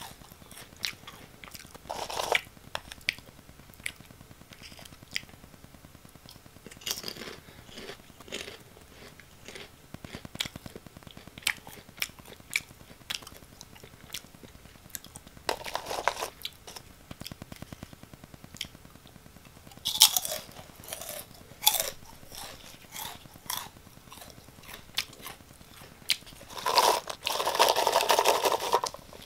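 Close-miked crunching and chewing of Oh!Gamja potato snack sticks, with sharp crisp bites scattered through. Near the end a louder rustling lasts about two seconds as the bowl is lifted.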